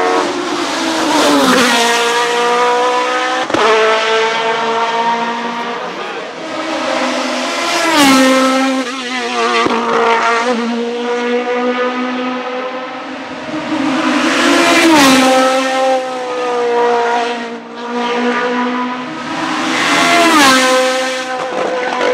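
Hillclimb racing prototypes passing one after another at full throttle, their engines revving high. The engine note climbs and then drops sharply several times as each car shifts or goes by.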